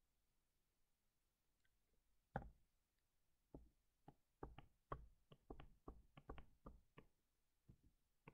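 Faint taps and clicks of a stylus tip on a touchscreen during handwriting. There is one sharper tap about two seconds in, then a run of quick, uneven ticks, one for each pen stroke as it touches down.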